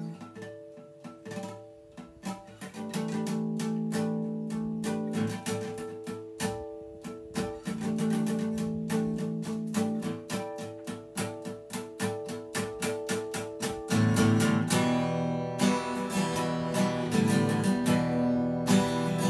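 Acoustic guitar played solo: a rhythmic chord pattern of quick, separate strokes, growing louder and fuller in the last five seconds.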